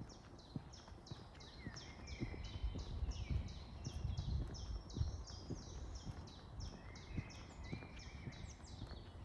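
A bird calling in a fast series of short high notes, each dropping in pitch, about three a second, with a few lower drawn-out notes mixed in. Under the calls are soft footsteps at a walking pace.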